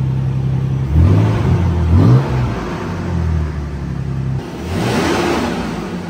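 2023 Toyota 4Runner's 4.0-litre V6 idling through a newly fitted Carven aftermarket exhaust with a deep, steady burble, blipped twice, about one and two seconds in. A little over four seconds in, it changes to the same engine revved once on its stock exhaust, quieter and with less low rumble.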